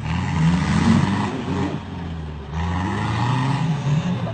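Off-road 4x4's engine revving hard as it churns through deep mud. It eases off about a second and a half in, then revs up again near the end.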